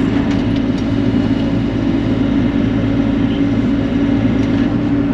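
Bobcat E42 mini excavator's diesel engine running steadily with a constant low hum while the machine pushes against a large tree.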